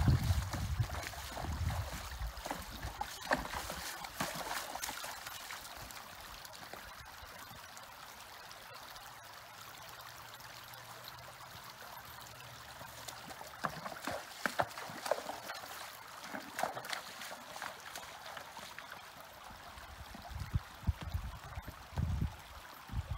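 A horse's hooves splashing and clattering on stones as it walks through a shallow, trickling creek, over the steady sound of running water. A few dull hoof thumps come near the end as the horse walks on the grassy bank.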